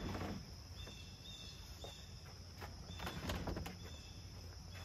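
Light knocks and scrapes of a plywood camper extension box being shifted on a pickup's tailgate, the strongest a little after three seconds in. Insects chirp faintly in the background.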